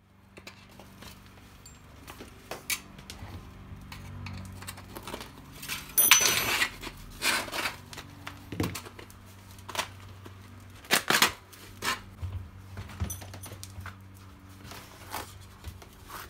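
Old bicycle tyre being worked off a rusty steel rim by a gloved hand: rubber rubbing and scraping against the metal, with scattered clicks and knocks. The loudest scrapes come about six seconds in and again around eleven seconds.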